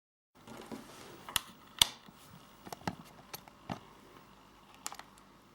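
Irregular sharp clicks and light taps of small hard objects being handled, with the loudest click a little under two seconds in. It begins abruptly after a moment of dead silence.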